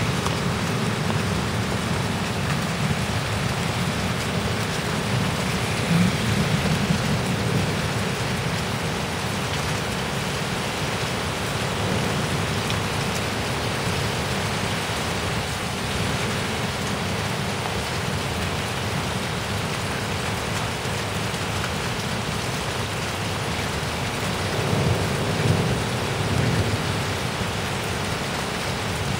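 Heavy rain pouring steadily in a severe thunderstorm. Brief low rumbles swell about six seconds in and again near the end.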